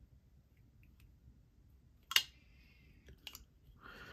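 Midgaards Messer Beowulf folding knife: one sharp metallic click with a brief ring about two seconds in, then a few softer clicks, as the sticking blade action is worked free.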